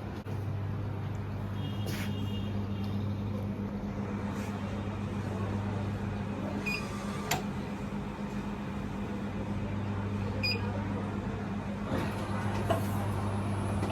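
Minosha DD2500 digital duplicator running with a steady low hum while it makes a master, with a few short electronic beeps from its keypad and some sharp clicks from the mechanism.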